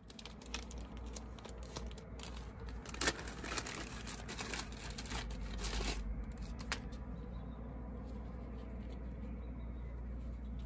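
Crinkling and scratching of a new ABS sensor and its cable being handled in gloved hands, with many small clicks, for about six seconds, then quieter handling noise over a steady low rumble.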